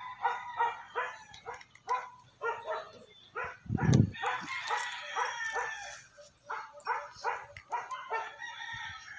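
Rapid run of short animal calls, a few a second, with a low thump about four seconds in.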